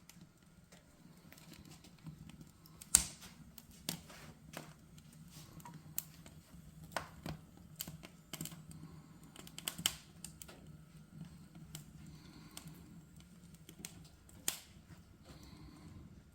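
Wood fire crackling in a fireplace: irregular sharp pops and snaps, the loudest about three seconds in, over a low steady hum.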